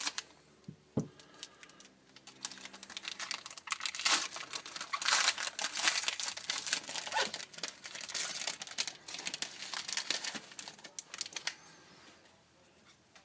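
Plastic packaging of a sealed trading-card pack crinkling and tearing as it is opened by hand, with a few light clicks first and the crinkling densest in the middle, dying away near the end.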